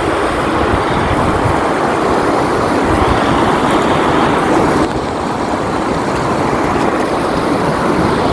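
Steady rushing of a river flowing over rocks, with wind buffeting the microphone in a low, uneven rumble.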